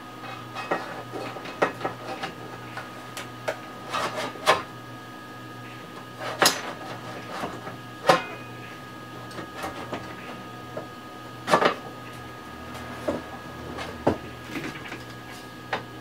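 Metal case of an Astron SS-30M power supply being handled and fitted back over its chassis: irregular clicks, knocks and rattles of sheet metal, with a few sharper knocks.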